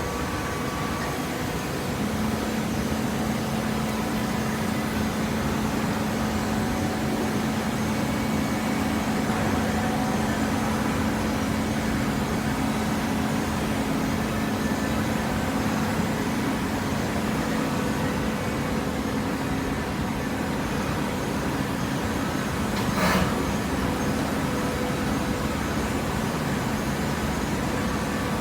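Self-tying cardboard baler running, a steady machine hum that sets in about two seconds in, with one sharp clank about 23 seconds in.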